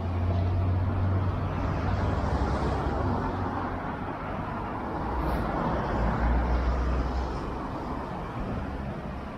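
Street traffic: vehicle engines running and passing over a steady wash of road noise, with a deeper engine hum in the first couple of seconds and again past the middle.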